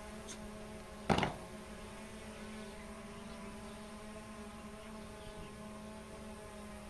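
Steady hum made of several steady tones, like a small engine or electrical hum, with one short, sharp knock about a second in.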